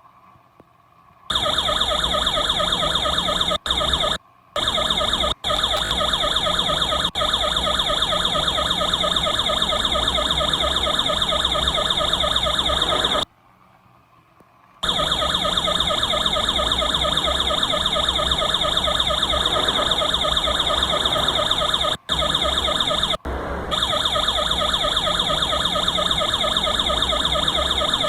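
Electronic yelp police siren played through the siren speaker fitted to a 1:18 scale model police car, wavering rapidly up and down. It starts about a second in, drops out for a moment a few times and stops for about a second and a half midway before carrying on.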